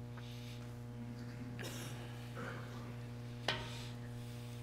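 Steady electrical hum from the church sound system, with the soft rustle of a congregation sitting down and a single sharp click about three and a half seconds in.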